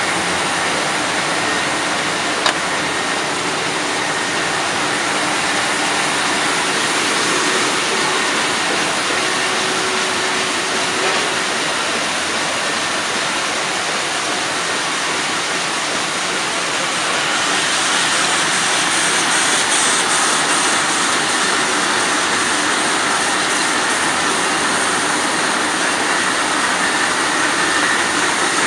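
MAN Roland 705 five-colour sheetfed offset press running, a steady, loud mechanical din with a single click a couple of seconds in.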